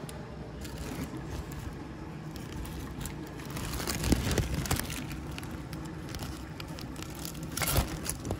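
Clear plastic oven bag around a turkey crinkling and rustling as it is handled, with scattered crackles and louder rustles about four seconds in and again near the end.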